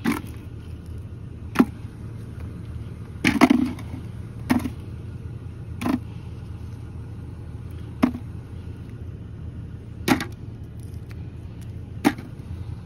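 Frozen chunks of cut shad dropped one at a time into a plastic bucket, each landing with a short hard knock, about eight in all at one- to two-second intervals, over a steady low rumble.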